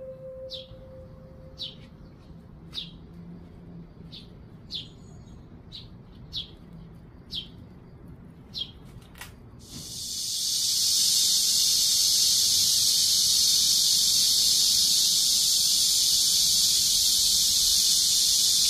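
A bird calling over and over with short, high, falling chirps, about one a second. There is a single click at about nine seconds. Then, from about ten seconds, a loud, steady, high-pitched insect drone takes over.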